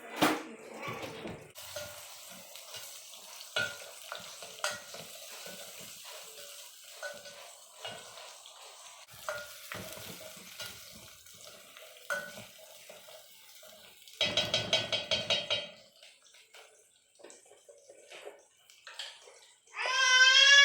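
A metal spoon stirring and knocking in a cooking pot, with scattered clinks and scrapes over a faint sizzle. About fourteen seconds in comes a quick rattling run lasting about two seconds, and a short pitched squeal sounds just before the end.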